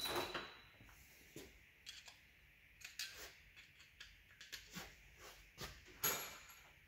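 Faint, scattered metallic clicks and clinks of hand tools as the timing locking tools are taken off the front of a 1.9 TDI PD engine, with a louder clatter about six seconds in.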